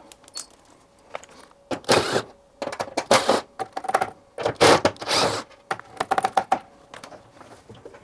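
Cordless drill-driver run in several short bursts, backing the screws out of a tumble dryer's sheet-metal front panel, with metallic rattling between the bursts.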